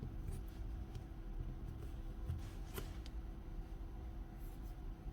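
Faint handling of small rotary hammer parts: light rubbing with a few short clicks, one sharper click a little under three seconds in.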